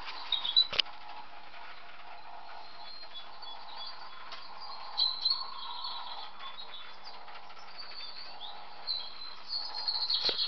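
Birds chirping, short high calls now and then over a steady background hiss, with a sharp click about a second in.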